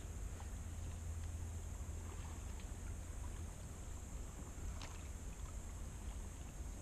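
Kayak paddling on calm water: faint drips and light splashes from the paddle over a steady low rumble and a steady high hiss, with one sharper click about five seconds in.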